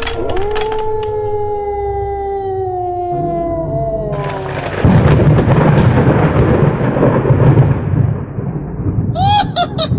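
Wolf howl sound effect: one long call that rises at the start and slowly falls in pitch, fading out about four seconds in. About five seconds in, a loud crack of thunder breaks in and rumbles for about four seconds, followed near the end by short, quickly repeated high chirps.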